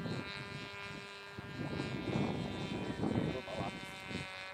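Small radio-controlled model airplane's motor and propeller whining steadily overhead, with louder rushing noise partly covering it in the middle.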